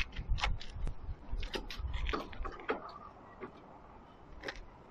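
Scattered metal clicks and knocks as the steel shaking-table deck is shifted by hand and fitted onto its slope adjusters and bracing plates, with a low rumble under the first three seconds.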